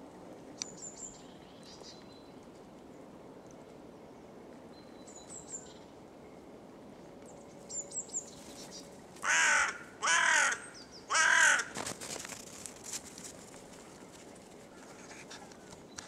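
Hooded crow cawing three times, about a second apart, each caw about half a second long. A few faint, short high chirps come before the caws.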